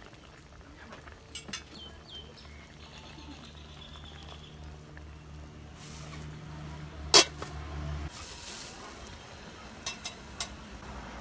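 Pot of soup boiling hard over a wood fire, with a steady bubbling hiss and scattered light clicks, and one sharp click about seven seconds in. A low steady hum stops about eight seconds in.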